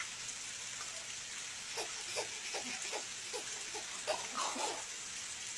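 Small black puppy making a run of short, soft vocal noises while it paws at and climbs on a baby, the loudest a little after four seconds in, over a steady hiss.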